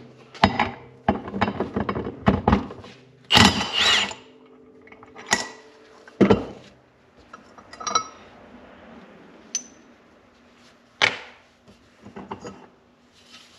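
Metal clinks and knocks of hand tools and parts as a 2005 Ski-Doo 550F's primary clutch is taken apart. A quick run of clinks comes in the first few seconds, with the loudest clatter about three and a half seconds in, then a few separate knocks.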